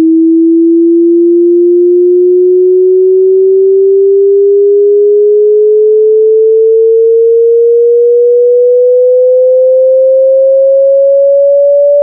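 A loud, pure sine-wave test tone gliding slowly and steadily upward in pitch, from about 320 to about 580 hertz, as in a frequency sweep.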